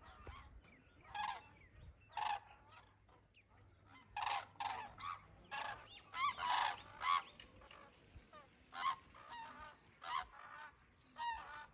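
A flock of cranes calling in flight: many short, fairly faint calls from several birds, overlapping most thickly a few seconds in.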